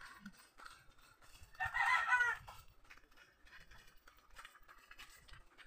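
A rooster crows once, about two seconds in, a short pitched call that stands out over a quiet background.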